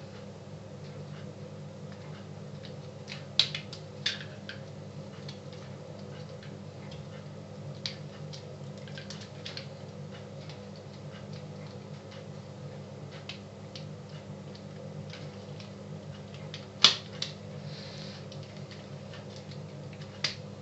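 Plastic parts of an electric shaver being handled and fitted together: a few scattered sharp clicks and knocks, one louder knock late on, over a steady low hum.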